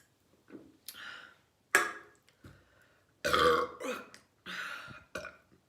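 A woman burping several times in a row, the longest and loudest burp about three and a half seconds in.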